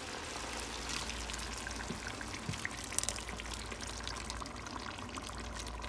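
Thick blended tomatillo salsa verde being poured into a pot of browned chicken and zucchini: a steady pour, with scattered small ticks and splatters throughout.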